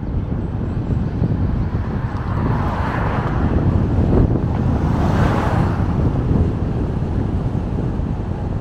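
Steady road rumble and wind noise of a car driving along a road. In the middle a louder rushing swell rises and then falls away over about three seconds.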